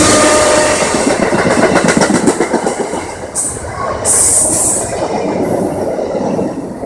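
VIA Rail passenger cars rolling past, their wheels clattering rapidly over the rail joints, with two brief high hisses about midway. The sound slowly fades as the train moves off.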